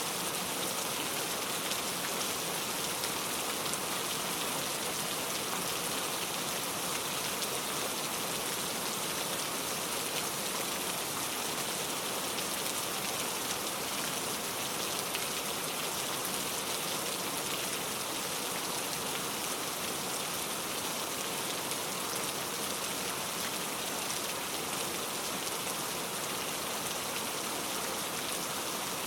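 Steady rain falling and pattering on a surface, an even hiss without thunder.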